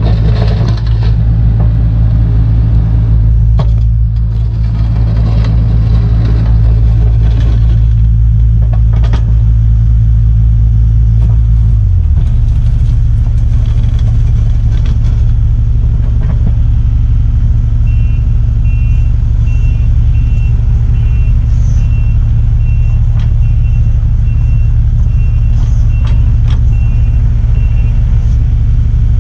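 Mini excavator's diesel engine running steadily under hydraulic work, its note dropping and settling about twelve seconds in, with occasional knocks in the first several seconds. A pulsing beeping alarm sounds over it for about ten seconds in the second half.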